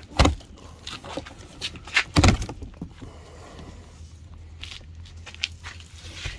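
Metal staples being pried out of a cardboard shipping box: sharp clacks and scrapes, the loudest about two seconds in, then lighter scattered clicks.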